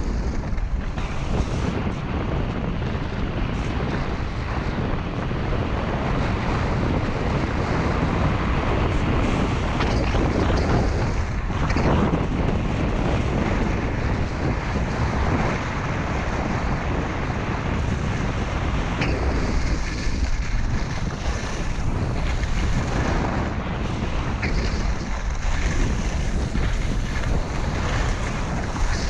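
Wind rushing and buffeting over the microphone of a camera worn by a skier going fast downhill, with the skis scraping over the snow. The rush swells and eases as the skier turns and changes speed.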